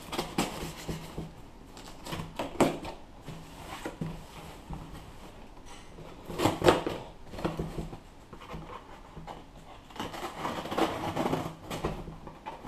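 Cardboard shipping box being handled while its packing tape is cut with scissors: irregular rustles, scrapes and knocks, the loudest about halfway through, with a denser run of scraping and slitting near the end.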